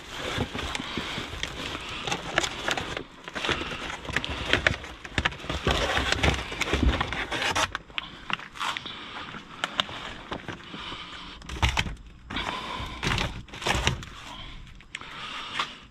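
Rummaging through a dumpster full of discarded food: packaging rustling and crinkling, with irregular knocks and scrapes as items are moved.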